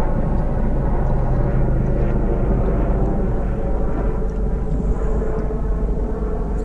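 Small fishing boat's outboard motor running steadily while under way, over an even rush of wind and water noise.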